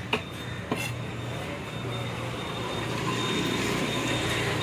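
Two sharp knocks of a fish cutter's broad knife striking the fish and wooden chopping block early on. Then a steady vehicle-like rumble with a thin high whine grows louder from about two seconds in.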